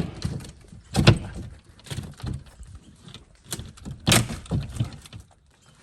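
Old wooden boards being pried and pulled loose from the cabin wall: a string of sharp wooden knocks and cracks, the loudest at the start and about a second in, with smaller clatter between.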